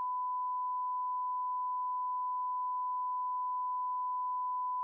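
A continuous electronic test-tone beep: one steady pitch held unbroken at a constant level.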